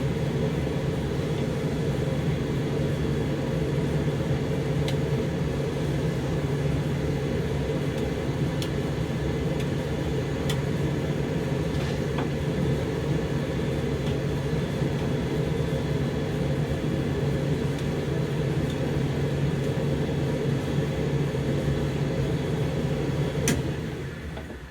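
Zanussi TD162 compact tumble dryer, a White Knight Crossley build, running with a steady motor and drum hum and a few faint ticks. Near the end a sharp click and the drum and fan wind down as the machine switches off.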